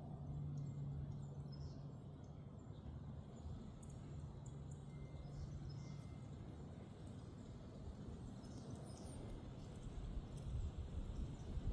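Outdoor ambience: faint, scattered bird chirps over a low rumble, with a steady low hum that fades out about halfway through. No rifle shot is heard.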